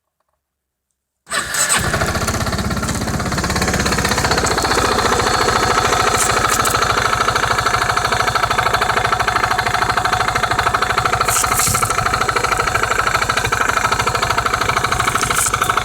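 Honda MF08 scooter's single-cylinder engine idling steadily, coming in abruptly about a second in, with a knock that the owner places in the CVT variator and that shows up at idle.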